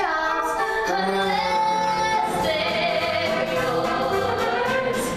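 A woman sings a show tune in long, held notes over instrumental accompaniment.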